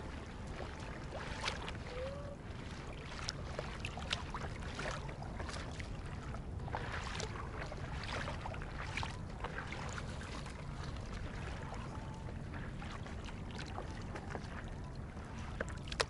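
Water lapping and slapping against a SUP board, with many small sharp splashes over a steady low rumble of wind on the microphone.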